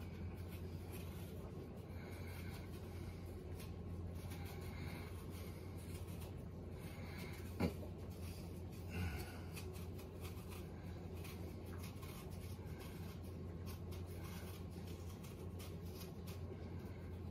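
Faint scraping of a knife cutting the skin off an apple in short repeated strokes, over a steady low hum. A single sharp click is the loudest sound, about halfway through.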